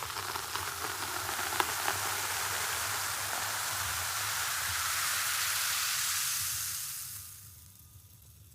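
Fizzing of a freshly poured carbonated drink, its bubbles hissing steadily and then dying away over the last couple of seconds, with a few faint pops along the way.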